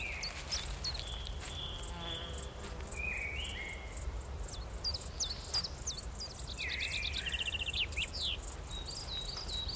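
Summer meadow soundscape: small birds singing short, repeated high chirps, with a quick trill about seven seconds in, over the steady, even chirping of grasshoppers or crickets.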